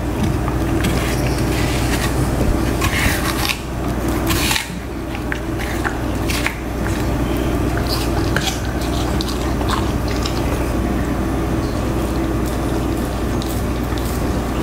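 Siberian husky biting and chewing a green apple: a run of wet, crackly crunches and mouth smacks, thickest in the first half and sparser after, over a steady low hum.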